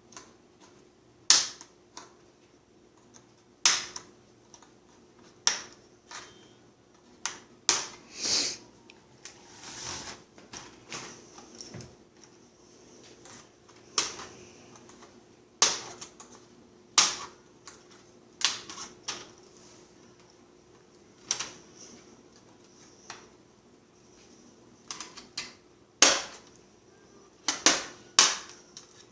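Plastic screen bezel of a Toshiba Satellite C55 laptop being pried off by hand: sharp clicks and snaps, irregular, about one every second or so, as its hook clips pop loose, with a longer scraping stretch about a third of the way in.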